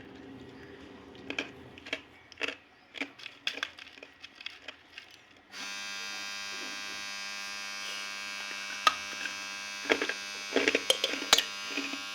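Dry multani mitti (fuller's earth clay) crunching and cracking in sharp, irregular snaps. About halfway in a steady electric buzz starts and carries on, with a few more crunches over it near the end.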